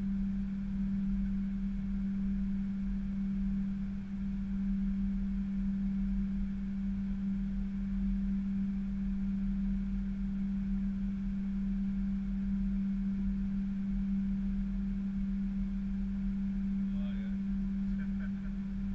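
Airliner cockpit noise while the aircraft taxis onto the runway: a steady deep hum with a constant rumble beneath it.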